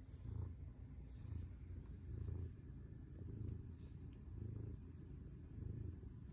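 Ginger-and-white cat purring steadily, the low purr swelling and fading about once a second.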